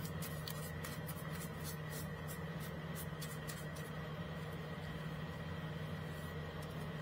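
Paintbrush bristles stroking along painted baseboard trim: quick, soft scratchy brush strokes that thin out after about four seconds, over a steady low hum.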